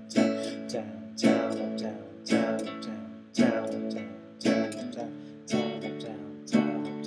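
Acoustic guitar strummed in a steady repeating pattern of down- and upstrokes (down, down, up, down, down, up, down), with a strong accented stroke about once a second and lighter strokes between.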